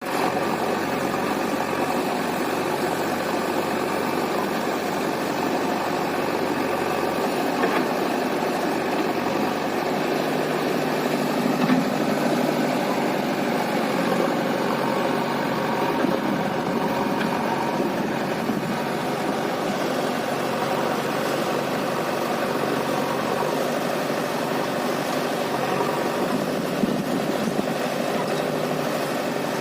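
Diesel engines of a Sonalika 745 DI tractor and a JCB backhoe loader running steadily during mud loading, with a couple of short knocks.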